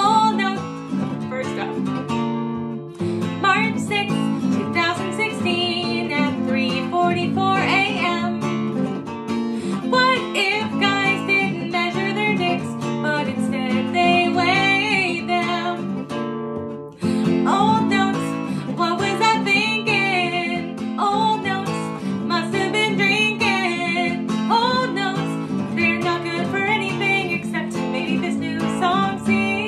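A woman singing while she plays a cutaway acoustic guitar. The song breaks off briefly about three seconds in and again around sixteen seconds in.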